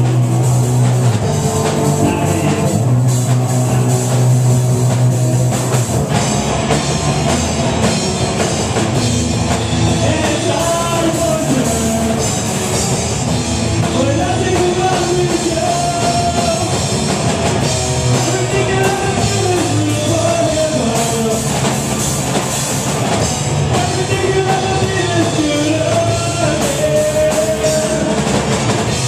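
Live rock band playing a song: electric guitar, bass guitar and a full drum kit, loud and continuous, with sung vocals coming in about six seconds in.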